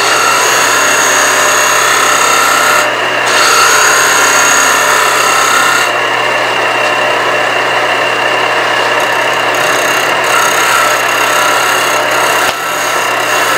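A turning tool scraping across a spinning wooden jam chuck on a wood lathe at about 1800 rpm, making truing cuts so the chuck runs true. It is a steady rasping of the tool on the wood over the lathe's steady hum.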